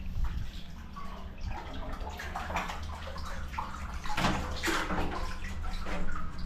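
Water splashing and sloshing in an irregular run of splashes, busiest about four to five seconds in.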